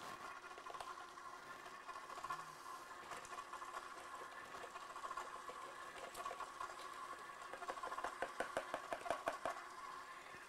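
KitchenAid stand mixer motor running steadily on low, driving the ice cream maker attachment's dasher. Near the end there is a quick run of rattling clicks as the Oreo cookie crumbs go into the churning ice cream.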